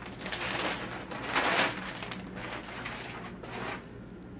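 Clear plastic polybag rustling and crinkling in several bursts as a pair of jeans is pulled out of it, loudest about a second and a half in.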